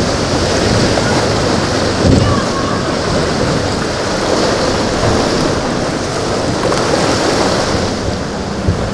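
Steady rush of surf and wind, with a short low thump about two seconds in and two more near the end.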